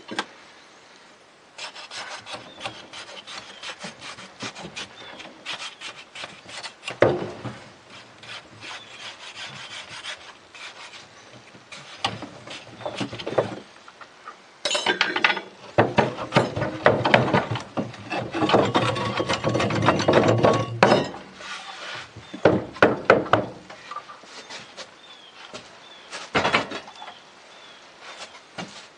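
Greensand being broken out of a wooden molding flask around a freshly poured aluminum casting: damp sand scraping, crumbling and rasping, with the wooden frame rubbing and knocking. The scraping comes in bursts with short pauses and is heaviest past the middle.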